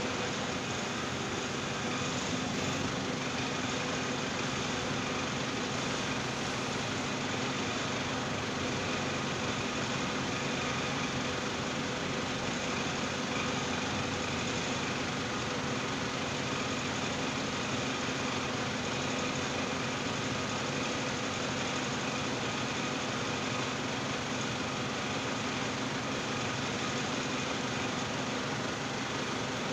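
Forklift engine idling steadily while the truck stands still, a constant hum with no reversing beeps.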